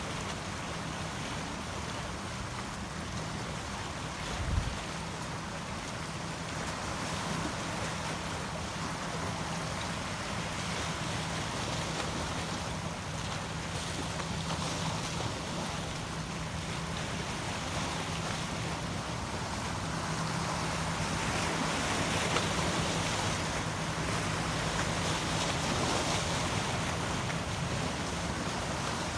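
Ocean waves washing in a continuous rush that swells and eases, with a steady low hum underneath. A single low thump comes about four seconds in.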